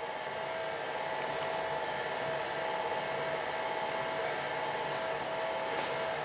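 Electric stand mixer running steadily, a constant motor hum with a steady whine, as it beats eggs with grated tapa de dulce (panela).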